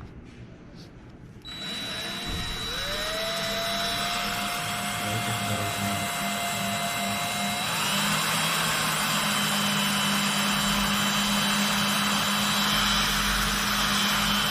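Overhauled top drive's electric drive motor switching on and running up to speed, with a steady high-pitched whine over a low hum. Its pitch rises and settles, then steps up to a higher speed about eight seconds in.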